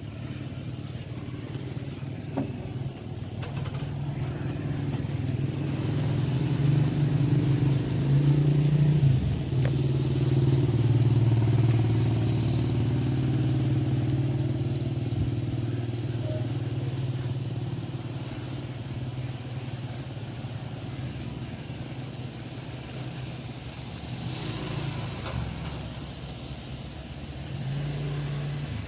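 Engine running with a steady low hum. It grows louder to a peak about ten seconds in, then slowly fades, with a slight rise again near the end.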